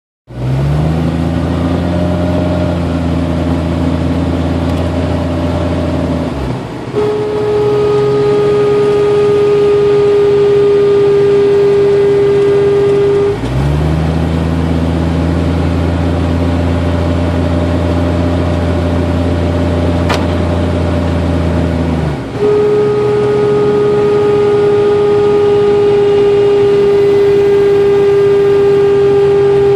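1992 Jeep Cherokee's A/C compressor whining with the engine running. A steady high whine sets in twice, each time for about six to eight seconds, alternating with stretches of plain engine drone. The owner traced it to an overcharged system, with liquid refrigerant entering the compressor.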